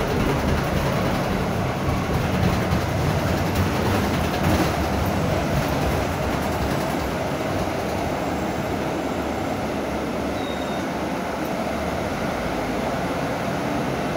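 Interior of a Mercedes-Benz O500U city bus with a Marcopolo Torino body underway: a steady diesel engine drone under road noise and cabin rattles.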